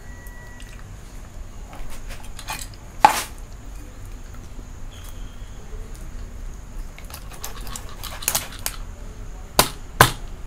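Meat cleaver chopping through a catfish and into a cutting board. There are a few sharp knocks, the loudest about three seconds in and a quick run of them near the end, as the blade cuts through the fish's hard bones.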